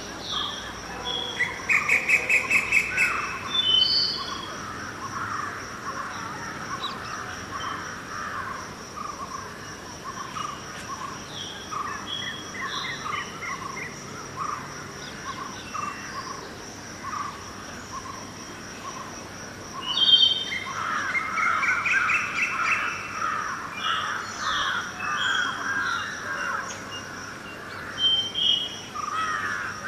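Several birds chirping and calling, busiest about two seconds in and again from about twenty seconds in, over a steady high-pitched insect drone.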